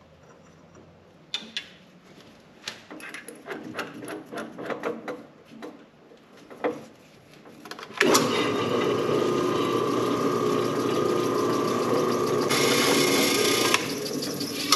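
Metal clicks and knocks as a piece of steel tubing is clamped in a drill press vise, then about eight seconds in the drill press motor starts and runs with a steady hum. Near the end it turns harsher for about a second as the bit cuts into the steel, then eases off.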